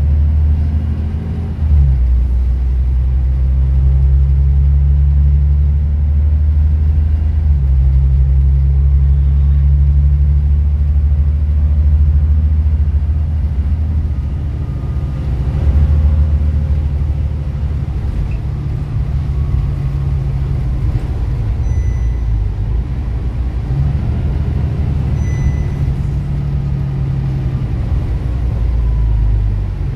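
Volvo B9TL double-decker bus's six-cylinder diesel engine and drivetrain, heard from inside the passenger cabin while driving. It makes a steady low drone that shifts in pitch and level several times as the bus changes speed, over road noise.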